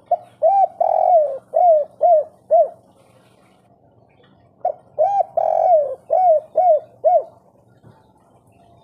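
Spotted dove cooing its song twice, each phrase about two and a half seconds long: two short coos, one longer coo, then three short clipped coos at the end, the 'kuk 3' pattern prized by keepers.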